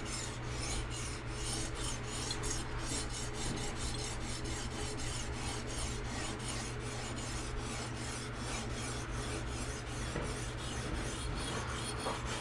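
A medium-grit resin-bonded diamond stone, primed with oil, rasping along a VG-10 Damascus knife edge in a fixed-angle sharpener. The strokes are quick and repeated, several a second, and steady throughout.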